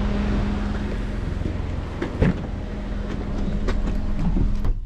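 A motor vehicle's engine running, heard as a steady low rumble with a humming tone that stops just before the end, and a few faint clicks over it.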